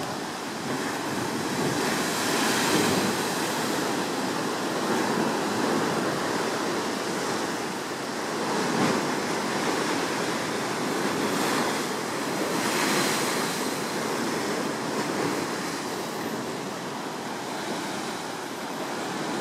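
Sea surf washing and surging in the rock chasms below, a steady roar of water that swells louder several times.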